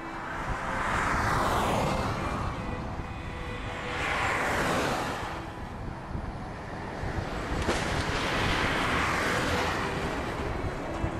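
Three vehicles passing one after another, about every three to four seconds, each a swell of tyre and wind noise that rises, slides down in pitch and fades, over a steady low rumble of road and wind noise.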